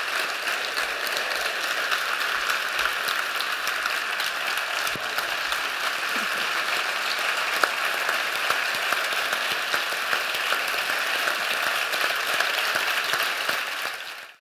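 A large audience applauding steadily at the end of a talk, with many hands clapping together. The applause fades out just before the end.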